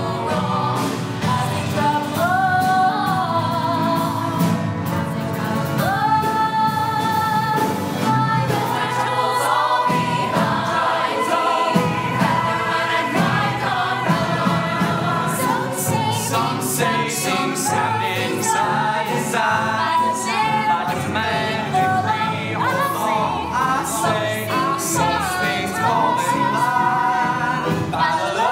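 A musical theatre cast singing a show tune together as an ensemble, many voices on held, wavering notes over accompaniment.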